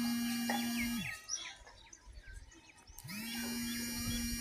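A small electric motor spins up, runs at a steady whine for about a second and spins down, twice, about three seconds apart. Birds chirp between the runs.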